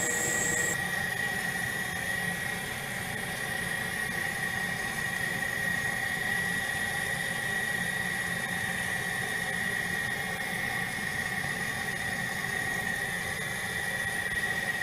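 A small motor or fan running steadily: a constant hum carrying a high, steady whine.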